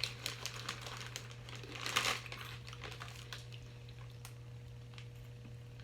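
Quiet crunching and clicking of small crunchy baked snack pieces being chewed, with a louder crinkling burst about two seconds in.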